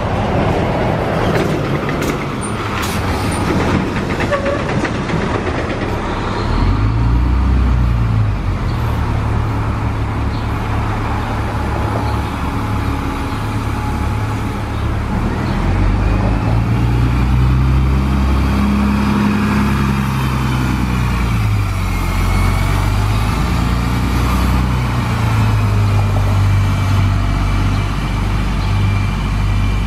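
New Flyer D40LF transit bus's Cummins ISC diesel engine running and pulling away, its note rising and falling in steps through the Voith automatic transmission. A high whine rises and falls over it in the second half.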